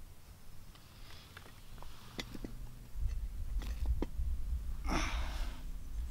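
Scattered small clicks and knocks of someone handling things, with a short breathy hiss like a sniff about five seconds in, over a low rumble that starts about halfway.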